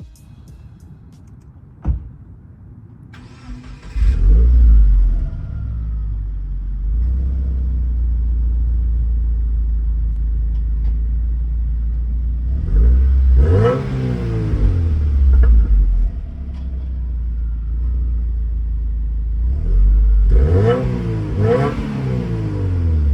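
Subaru WRX's turbocharged flat-four engine starting about four seconds in and settling into a steady idle, then revved once in the middle and twice in quick succession near the end.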